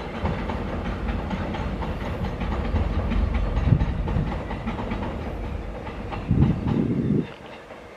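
Seoul Subway Line 4 electric train running along the track, its wheels clicking over the rails. A louder stretch about six seconds in ends suddenly just after seven seconds, and the sound drops away.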